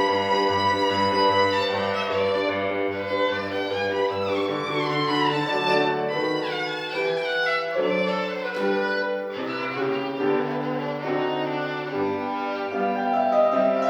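Solo violin playing a melody with quick rising and falling runs, over a piano accompaniment of low held notes.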